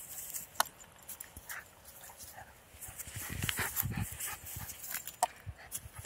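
A small Jack Russell–Chihuahua mix dog scampering on grass during a game of fetch. There are soft thuds, bunched together about three to four seconds in, and a few sharp clicks.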